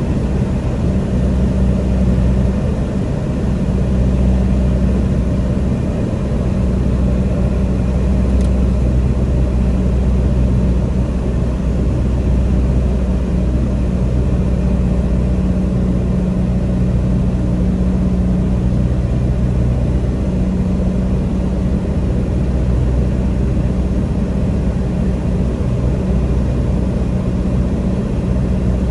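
Light single-engine airplane's piston engine and propeller running steadily in flight, heard from inside the cockpit as a constant low, even drone.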